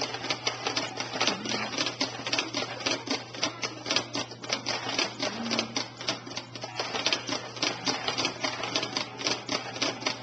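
Baby jumperoo rattling and clicking rapidly and irregularly as the baby bounces in it, its toys and frame clattering several times a second.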